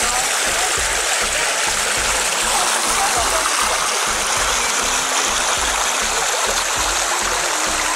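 Calcium-rich thermal spring water rushing along a narrow travertine channel: a steady, fairly loud splashing hiss with no let-up.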